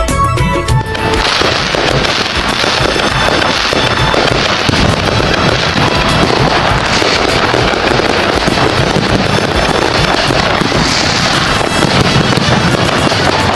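A fireworks display: a dense, continuous barrage of bursting and crackling aerial fireworks, which takes over from a music track about a second in.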